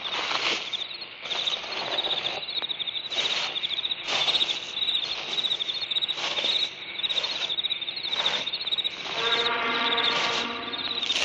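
Crickets chirping in a steady, pulsing high trill, with short rushes of noise coming every half second to a second. Near the end a low pitched call is held for about a second and a half.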